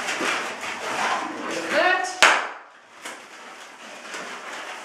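Latex twisting balloons squeaking and rubbing against each other as small bubbles are twisted, with one sharp snap a little over two seconds in, then quieter rubbing.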